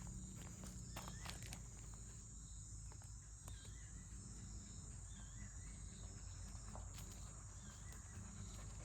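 Faint dusk chorus of insects: a steady high-pitched buzz, with short bird chirps now and then and a low rumble underneath.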